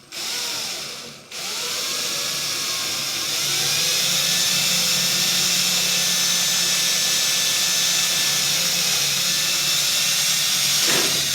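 Electric drill boring through clamped sheet metal. It makes a short run, stops briefly about a second in, then runs steadily for the rest, its whine rising slightly a few seconds in.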